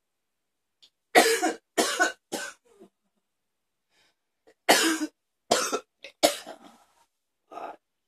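A woman coughing hard: two fits of three coughs each, a few seconds apart, then one weaker cough near the end.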